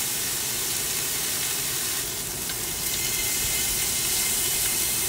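Beef slices sizzling steadily on a hot black griddle pan.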